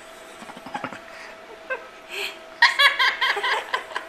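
Laughter: a quick run of high-pitched laughs starting about two and a half seconds in, after a few soft clicks, over a faint steady hum.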